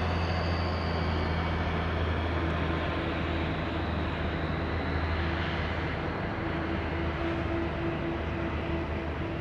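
Airbus A320 jet engines running at low taxi power: a steady low hum under an even rushing noise, easing off slightly near the end.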